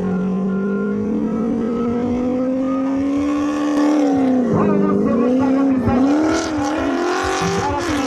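Rally car engine running hard, its pitch climbing slowly over the first few seconds, then dipping sharply twice as the throttle is lifted and reapplied, and holding high again near the end.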